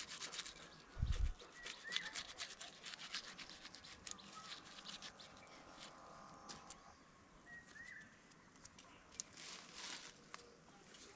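Knife scraping the bark of a wild apple branch in quick, rapid strokes, baring the wood for an air layer. The strokes are densest in the first few seconds, then sparser with another burst near the end. A dull thump comes about a second in, and there are a few faint bird chirps.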